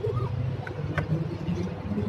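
Outdoor street background noise: a steady low rumble, with a short rising chirp just after the start and a single sharp click about a second in.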